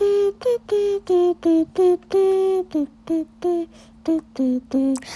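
Children's song music: a short melody of about a dozen separate, evenly held notes that steps lower near the end, with a faint steady hum underneath.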